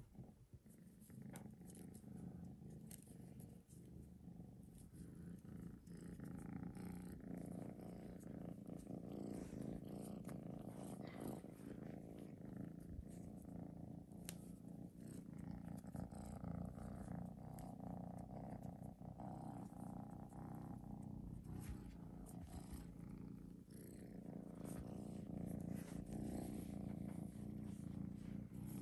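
A kitten purring steadily and close to the microphone, the purr building over the first few seconds, with a few faint light clicks over it.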